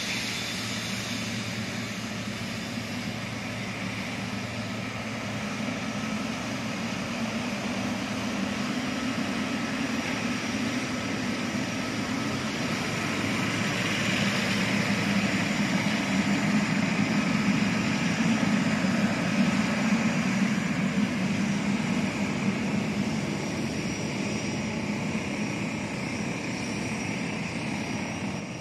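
Boeing 777's twin jet engines at taxi power: a steady rumble with a high whine. It grows louder from about halfway through as the airliner comes closer.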